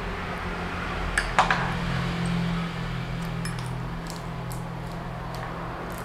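Light metallic clinks and rattles as a bicycle rear derailleur and its cable are handled and worked off the frame. There is a sharp cluster of clicks about a second and a half in, the loudest moment, then scattered lighter ticks over a steady low hum.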